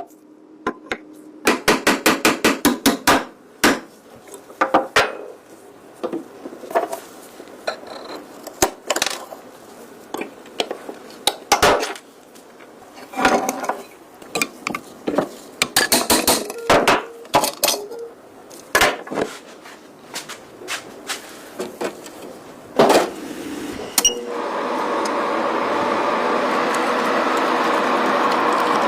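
Hammer and tools knocking and clinking on metal: scattered sharp taps, with a quick run of about ten taps a second early on. Near the end a steady machine whir starts and holds.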